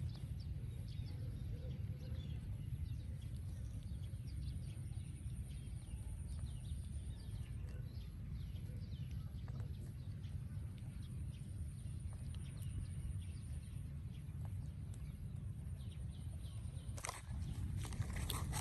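Steady low wind rumble on the microphone, with many faint short high animal chirps scattered throughout and a couple of brief rustles near the end.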